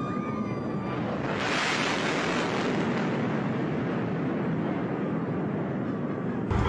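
Fighter jet passing low and fast: a broad rushing jet-engine roar that swells about a second in, holds steady, and stops abruptly near the end.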